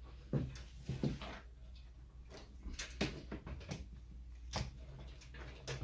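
Metal frame of an open-frame server rack being handled and turned over: a series of irregular knocks and clanks.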